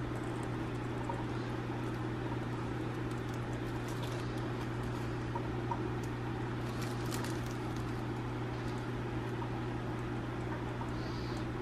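A steady low hum, with faint soft rustles and plops as a thick creamy sauce slides from a stainless steel bowl onto chicken in a plastic-lined slow cooker.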